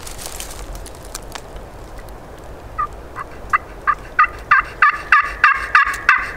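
Turkey pot call worked with a wooden striker, giving a run of about a dozen hen-turkey yelps that starts about three seconds in and grows louder.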